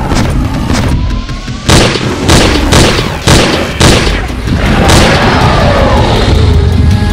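Film sound effects over music: a run of about seven heavy booms, roughly two a second, over a low rumble.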